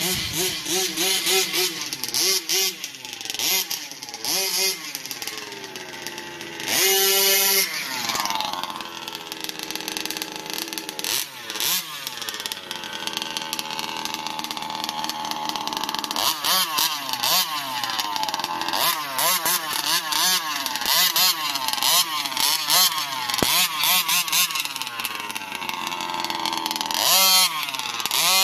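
Small two-stroke engine of a large-scale gas RC buggy being driven hard, its pitch climbing and falling over and over as the throttle is worked. There are two longer high-revving full-throttle runs, one about a quarter of the way in and one near the end.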